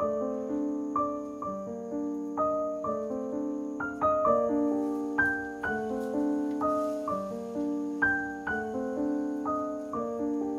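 Background piano music: a steady, unhurried run of struck notes and chords.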